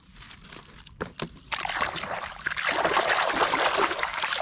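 Muddy, frothy water splashing and sloshing in a tub as a hand swishes a toy truck through it. It is quiet at first, then the splashing grows loud and continuous about a second and a half in.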